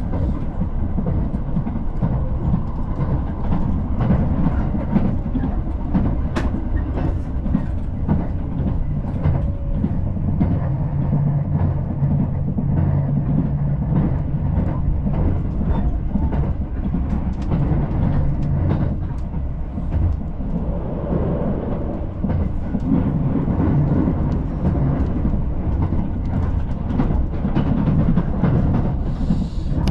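Passenger train running, heard from inside the carriage: a steady low rumble of wheels on rails with constant fine rattling and clicking.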